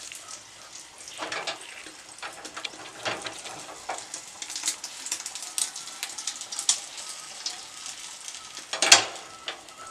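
Egg frying in a small metal pan, sizzling and crackling, with a knife scraping against the pan as the egg is cut and turned. A single louder knock near the end as the pan is handled on the gas burner.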